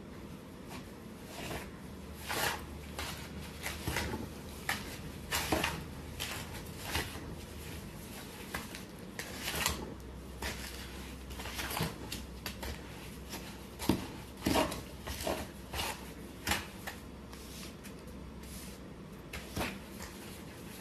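Plaster being stirred by hand in a bucket: the mixing tool scrapes and knocks against the bucket's sides and bottom in irregular strokes.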